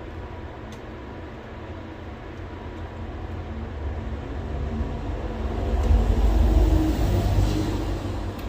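A low rumbling noise that swells to its loudest about six to seven seconds in and then fades.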